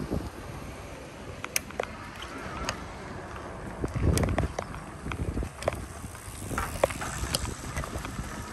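Riding a bicycle: wind rumbling on the microphone, with scattered sharp clicks and rattles from the bike. A stronger gust of wind comes about four seconds in.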